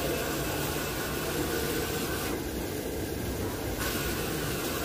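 Sanding on a car body panel being prepared with body filler: a steady, scratchy hiss. The high, scratchy part stops for about a second and a half midway, then resumes.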